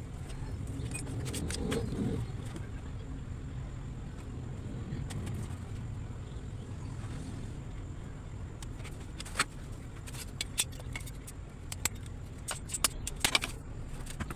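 Sharp metallic clinks and taps over a steady low rumble, a few scattered and then several in quick succession near the end.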